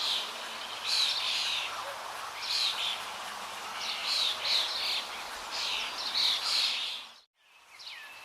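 Birds chirping over a faint outdoor background, short calls repeating every second or so. Near the end the sound cuts out briefly, then different sweeping bird calls begin.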